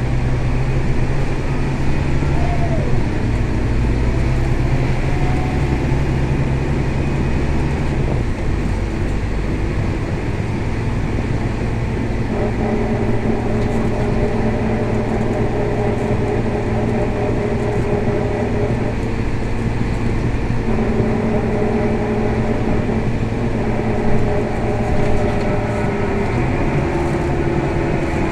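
Scania K320 bus running under way, heard from inside the passenger cabin: a steady engine drone with a fainter whine above it, both shifting in pitch a few times as the bus changes speed and gears.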